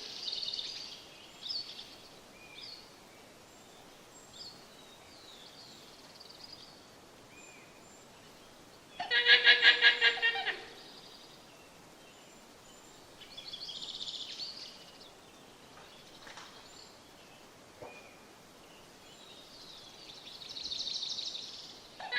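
Camel calling in rapid pulsing bellows: one loud call about nine seconds in, with fainter calls near the start, around fourteen seconds and near the end. Faint high chirps from small birds come in between.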